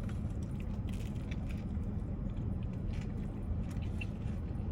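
Steady low background hum, with a few faint soft clicks of chewing and mouth sounds over it.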